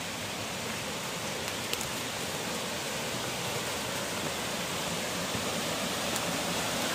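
Steady rush of a rocky forest stream spilling over small cascades, slowly growing louder.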